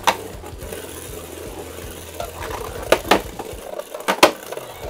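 Beyblade Burst tops spinning in a plastic stadium with a steady whirring hiss, clashing in sharp clicks: a pair about three seconds in and another pair about a second later.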